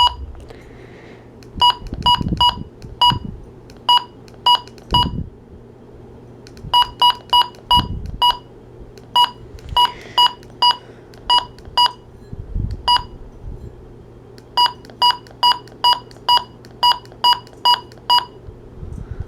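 Midland HH54VP weather radio's key beep: many short, identical beeps at one pitch as its buttons are pressed one after another, sometimes in quick runs, with a few soft handling thumps.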